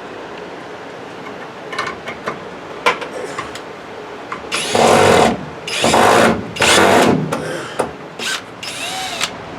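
Power drill driving screws in three short runs, each about half a second long, with scattered clicks and taps before them. A shorter run near the end has a whine that rises and falls.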